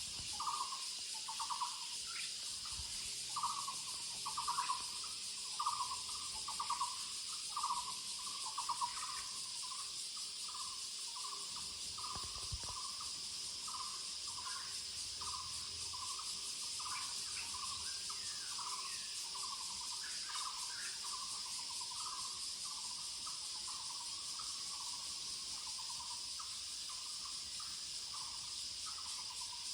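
Muller's barbet (五色鳥) calling: a long series of short repeated notes, a little over one a second, loudest in the first ten seconds and then softer. A steady high hiss of insects runs underneath.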